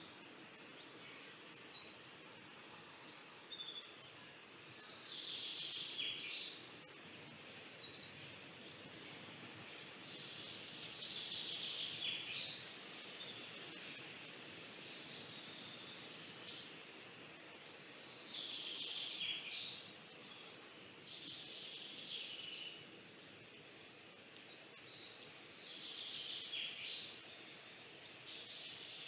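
Pencil scratching across drawing paper in bursts of quick back-and-forth shading strokes, each burst lasting a second or two, with short pauses between them.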